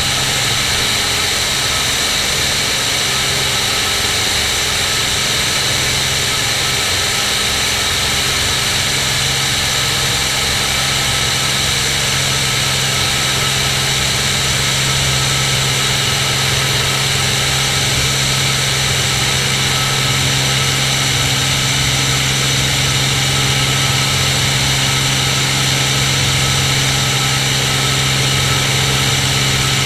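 Cirrus SR22's six-cylinder piston engine and propeller running steadily in flight, a constant drone with a steady low hum and an even hiss above it.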